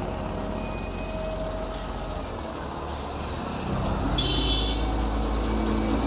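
Large wheel loader's diesel engine running as the machine rolls past close by, its low rumble growing louder a little past halfway. A brief high-pitched tone sounds about four seconds in.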